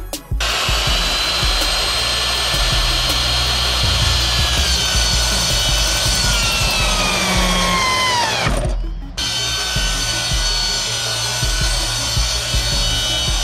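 Electric compound miter saw running as its blade cuts into a Nike Joyride running shoe. The motor's whine falls steadily in pitch for several seconds, breaks off briefly, then the saw runs again at a steady pitch.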